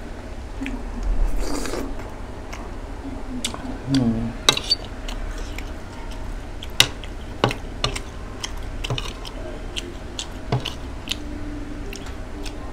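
Metal spoon and fork clinking and scraping against a ceramic plate while eating, with several sharp separate clinks and a couple of brief low murmurs from the eater.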